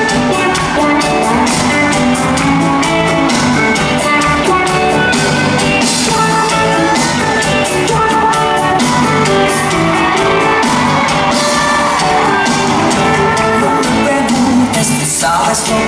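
A live band plays amplified dance-pop music with a steady drum beat, heard from the audience in an arena.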